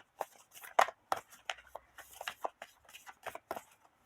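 A deck of oracle cards being shuffled by hand: quick, irregular papery flicks and snaps, several a second.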